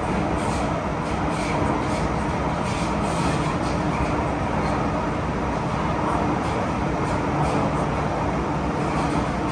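MTR M-Train electric multiple unit running, a steady rumble of wheels on rail and motor noise with a faint steady hum.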